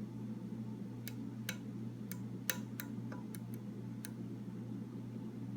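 Lock pick and tension wrench working the pins of a Master Lock No. 3 padlock: about nine small sharp metallic clicks over three seconds, then they stop.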